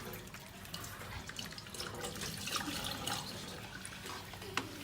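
Raw fish being washed by hand in clean water: irregular splashing and dripping, with one sharp knock near the end.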